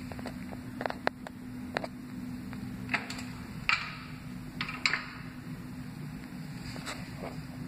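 Steady low hum of the restroom's ventilation, with a scattering of sharp clicks and knocks from hands on the toilet fixture as the plastic seat is lifted, most of them in the first five seconds.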